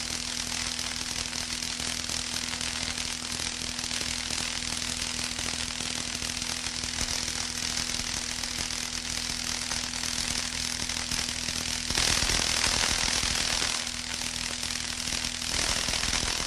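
White noise for tinnitus masking: a steady, high hiss over a constant low hum, growing louder for about two seconds starting twelve seconds in.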